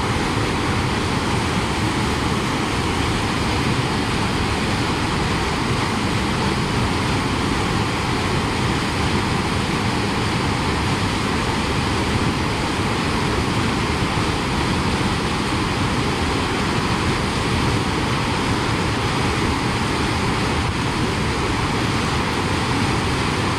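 Steady rushing of whitewater in a mountain creek, an unbroken loud roar with no change.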